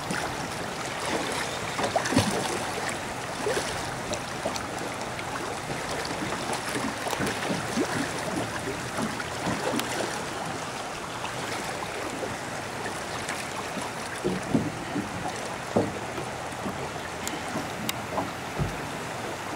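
Water splashing and sloshing against the side of a small boat as a hooked sturgeon is held alongside, a steady wash of water noise with a few brief knocks.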